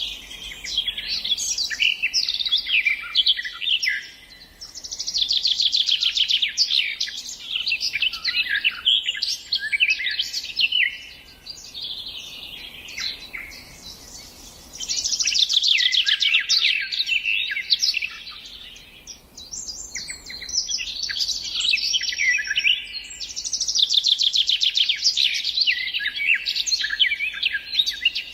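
Songbirds singing: long phrases of rapid trills and chirps, broken by short pauses.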